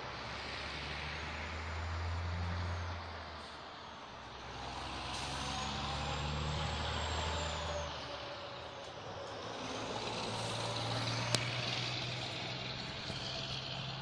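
Passing road traffic, with trucks among it: the rumble swells and fades three times as vehicles go by. A single sharp click comes about eleven seconds in.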